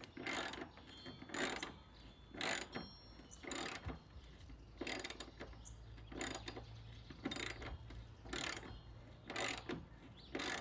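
Hyper Tough socket ratchet being worked back and forth to drive a fastener back in, clicking in short bursts about once a second.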